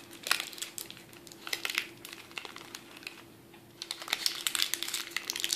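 Parchment paper and a paper doily crinkling and crackling as fingers press and mold them down over a jar lid, in short spells of small clicky crinkles with a quieter pause just past the middle.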